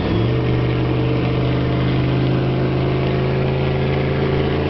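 Chevrolet Suburban's turbocharged diesel V8 running steady, its engine note stepping up to a higher speed just after the start and holding there. The driver is bringing up the turbo whistle.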